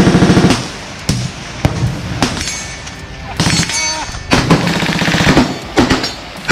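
Full-auto burst from an AR-pattern rifle, a fast even string of shots that stops about half a second in. Scattered single shots and shorter rapid strings from other rifles on the firing line follow.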